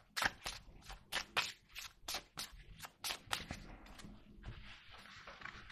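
A deck of Lenormand cards being shuffled by hand: quick, irregular snaps and taps of cards striking each other. In the last couple of seconds the taps give way to a soft, steady rustle of cards sliding.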